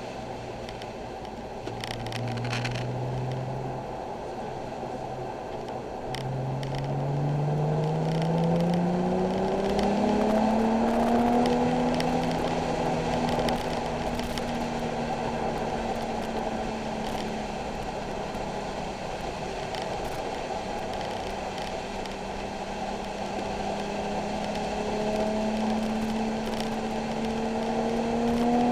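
Nissan 370Z's 3.7-litre V6 engine under acceleration on track, heard from inside the car over a steady road and wet-tyre hiss: its pitch climbs steadily, holds while cruising, then climbs again near the end.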